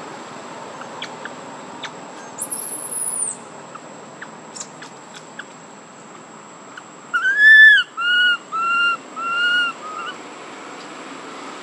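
An animal calling: a run of five short, clear, high calls about seven seconds in, each rising and falling slightly in pitch, the first the longest and loudest. Earlier, about two seconds in, there is a single high falling whistle, over a thin steady high tone.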